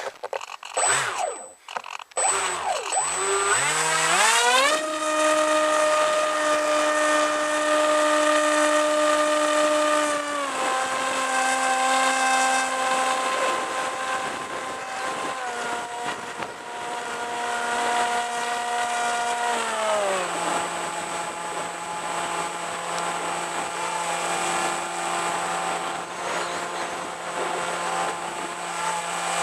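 Brushless electric motor and propeller of a Bixler RC foam plane spooling up, with a rising whine about two seconds in. It then runs at a steady pitch and steps down in pitch a few times as the throttle is eased back.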